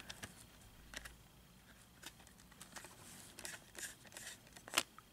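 Faint handling of a plastic multi-disc Blu-ray case: scattered small clicks and light rustles as the hinged disc tray is turned, with one sharper click near the end.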